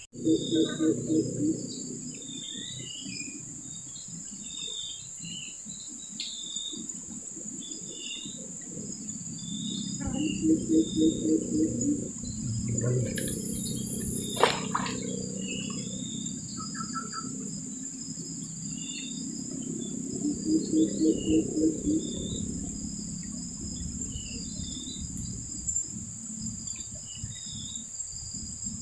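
Steady high-pitched insect drone with scattered short bird chirps. Under it, a louder low rumble swells and fades, with a fast pulsing trill three times, about ten seconds apart.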